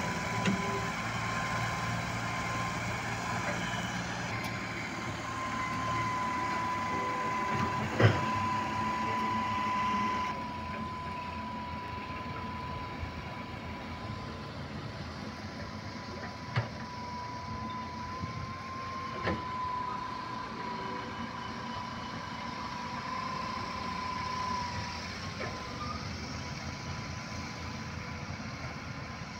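Farm tractor engines running as the tractors haul sand-laden trailers, with a steady high whine over them. A sharp knock comes about eight seconds in, and two fainter ones follow later.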